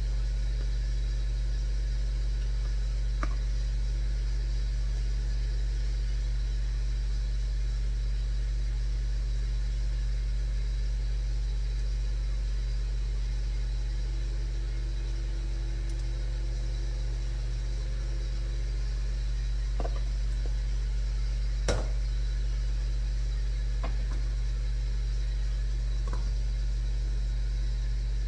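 Steady low hum of a kitchen appliance's fan running, with a few light clicks and taps of utensils, the sharpest about two-thirds of the way through.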